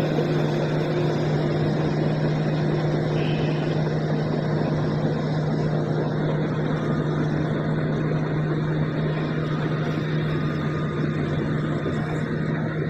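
Diesel engine of a Shantui SD16 bulldozer running at a steady speed, a constant low engine drone.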